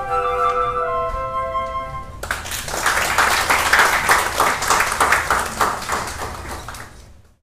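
A flute quartet holds its final notes, then stops about two seconds in and an audience breaks into applause, which dies away near the end.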